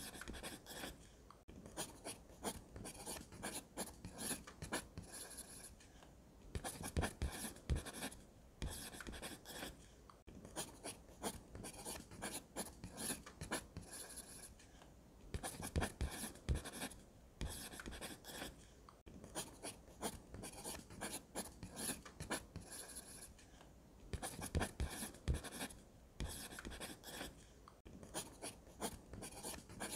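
Graphite pencil scratching across drawing paper in runs of short, quick strokes, broken by brief pauses every few seconds.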